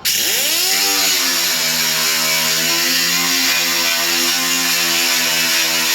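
A power grinder spins up over about a second and then runs steadily, grinding weld beads flush on sheet-metal body panel. The weld filled old holes, and it is worked at a moderate pace so the metal doesn't heat up and warp.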